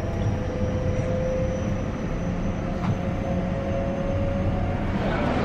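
Cabin noise of a moving electric commuter train: a steady low rumble with a faint steady hum over it.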